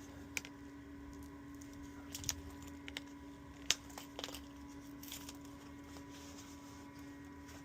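Tape being handled and torn: a few scattered small clicks and crinkles over a faint steady hum.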